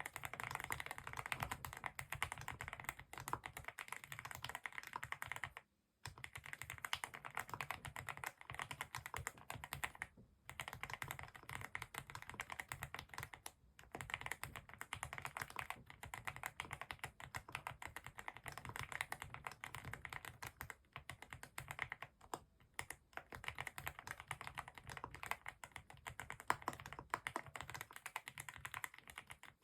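Typing on a Vter Galaxy80 mechanical keyboard fitted with factory-lubed Gateron Milky Yellow Pro linear switches: a fast, steady run of keystrokes broken by a few short pauses.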